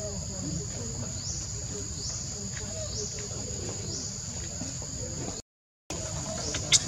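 Steady high-pitched insect chorus with a short rising sweep that repeats about once a second, over a low rumble. The sound drops out completely for about half a second near the end.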